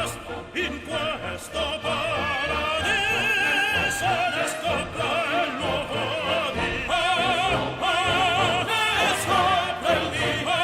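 Background music: operatic singing with heavy vibrato over an orchestra.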